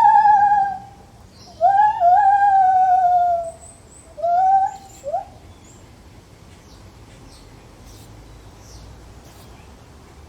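Lar gibbon calling: loud hooting calls that swoop up in pitch and then slide down, the longest about two seconds, with a short one near the end of the series about five seconds in. After that only faint background with a few small high chirps.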